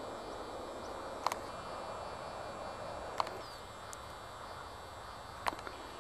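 Steady outdoor ambience hiss over open farmland, broken by three short sharp clicks: about a second in, about three seconds in and near the end.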